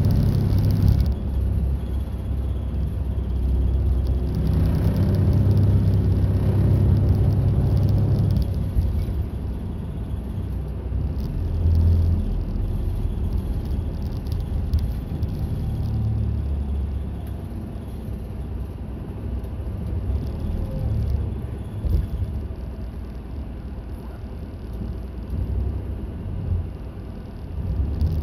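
Route bus running on the road, heard from inside the passenger cabin: a steady engine drone and road rumble. It is louder for the first eight seconds or so, then settles quieter.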